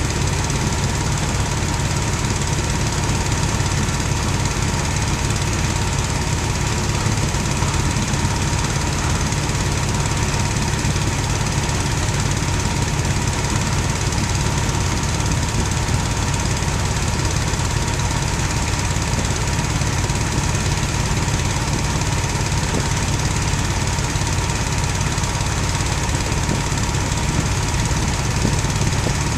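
A diesel engine on farm machinery idling steadily, an even drone with a faint steady whine above it.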